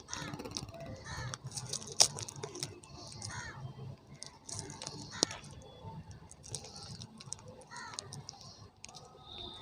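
Hands handling the fish packaging and plastic bag: scattered sharp clicks and crinkling rustles, the loudest clicks about two and five seconds in, with short calls sounding faintly in the background.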